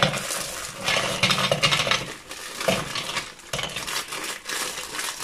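Plastic wrapper of a packet of María biscuits crinkling as it is torn open, with the biscuits clicking as they drop into a food processor's plastic bowl. Irregular rustling with scattered sharp clicks.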